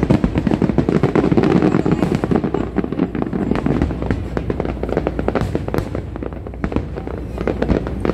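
Fireworks display: a dense run of many rapid pops and bangs overlapping into a continuous crackle, heaviest in the first three seconds and a little lighter after.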